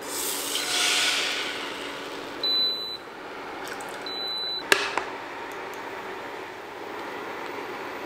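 Induction cooktop control panel beeping twice, about a second and a half apart, as the heat is set for the crepe pan, after a brief hiss at the start. A sharp knock comes just after the second beep, followed by a low steady hiss.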